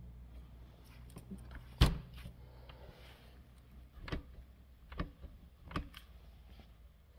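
A few sharp knocks and clicks over a low hum, the loudest about two seconds in, then three more spaced about a second apart.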